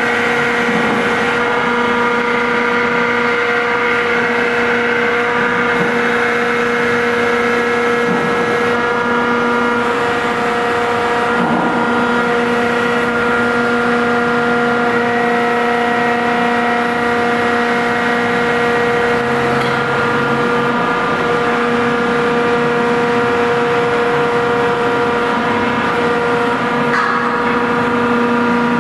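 Builtrite 2100-SE stationary electric material handler running, with a steady hum of constant pitch from its electric motor and hydraulic pump as the boom and grapple move.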